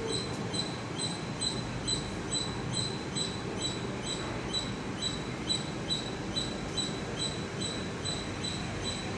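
Makino SLIM 3 CNC vertical machining center running: a steady machine hum with a short, high-pitched chirp repeating evenly about two and a half times a second.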